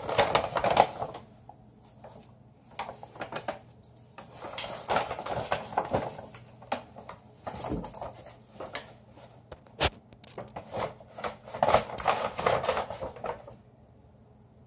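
Paper grocery bag rustling and crinkling in irregular bursts as a dog noses and pushes into it, with one sharp click about ten seconds in; the rustling stops near the end.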